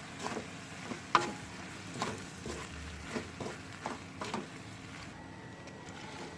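A cooking utensil knocking and scraping in a pan while stir-frying rice vermicelli, over a steady sizzle. There are about ten irregular clacks, the sharpest just after a second in, and they thin out after about four and a half seconds.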